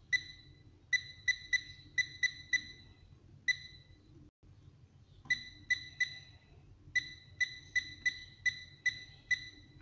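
Philips air fryer's control panel beeping with each button press as the heat and timer are set: short, high electronic beeps in quick runs, about eighteen in all, with a pause of about two seconds near the middle.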